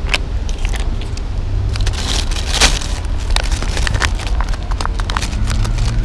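Aluminium foil crinkling and crackling as it is opened out on the ground, and a plastic food pouch rustling as wet cat food is squeezed from it, over a low steady rumble.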